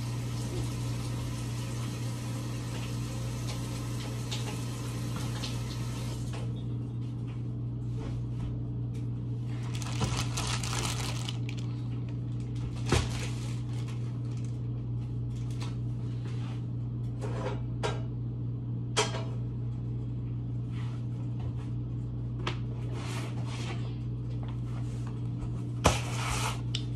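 Steady low hum of a running kitchen appliance, with a few sharp knocks and clatters from things being handled. A higher hiss above the hum drops away about six seconds in.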